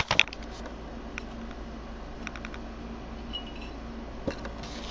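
A few light clicks and taps from close handling, with a cluster of quick ticks about two and a half seconds in, over a steady low hum.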